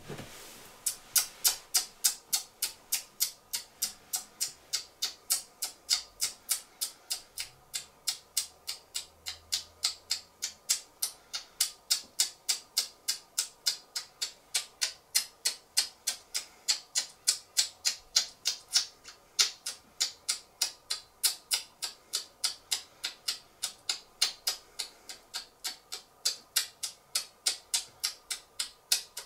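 Typewriter keystroke sound effect: sharp, evenly spaced clicks, about three a second, laid under the on-screen text. A short thump comes right at the start.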